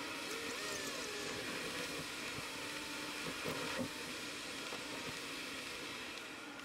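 Car interior driving noise picked up by a dashboard camera's microphone: steady engine and tyre noise while cruising in traffic.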